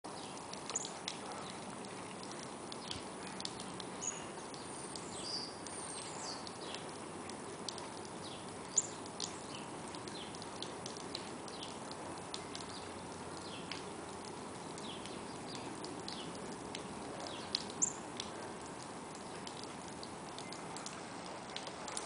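Northern cardinal giving short, sharp, high chip notes at irregular intervals, the loudest about 9 and 18 seconds in, over a steady background noise.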